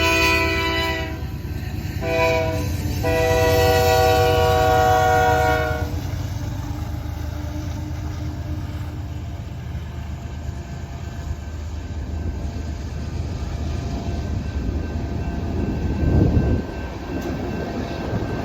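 Canadian Pacific freight locomotive's air horn sounding the grade-crossing signal: a long blast that ends about a second in, a short blast, then a final long blast that stops about six seconds in. After that the passing freight train keeps up a steady low rumble.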